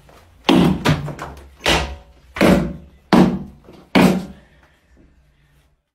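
Six loud thuds, unevenly spaced over about three and a half seconds, each dying away quickly.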